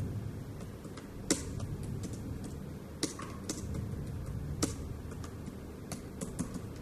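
Typing on a tablet's on-screen keyboard: a handful of irregular, sharp taps on the glass screen over a low steady hum.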